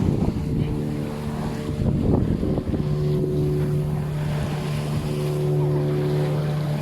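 Small motorboat's (ketinting's) engine running at a steady pitch under way, over wind buffeting the microphone and the wash of waves in a rough sea.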